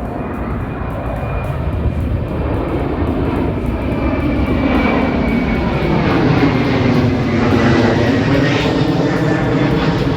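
Jet airliner's engines growing steadily louder as it passes close by, with a high whine that slowly falls in pitch.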